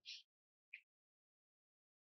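Near silence, with only the faint tail of the last spoken word at the very start and one brief, faint tick just under a second in.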